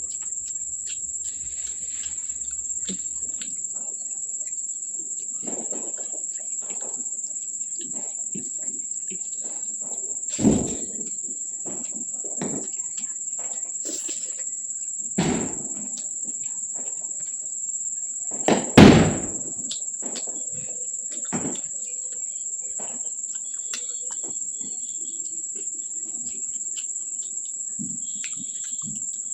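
Close-up eating sounds: chewing, lip smacks and small clicks as a meal of kadhi, rice and fried snacks is eaten, over a steady high-pitched drone. There are a few louder thumps about ten and fifteen seconds in, and the loudest, a double one, near nineteen seconds.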